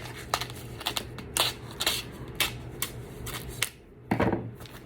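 Paper and packaging of a card kit being handled: a string of irregular light clicks and taps, with a louder rustle about four seconds in.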